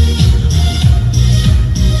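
Electronic dance music with a steady, pounding kick drum at about two and a half beats a second.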